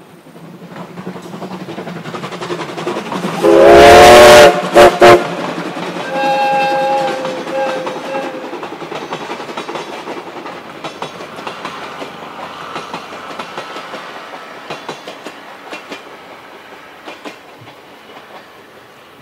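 Steam-hauled passenger train approaching with a low rumble that builds. About three and a half seconds in the whistle blows so loud that it overloads the recording, followed by two short blasts and then a second, longer whistle. After that the train rolls past, its wheels clattering over the rail joints.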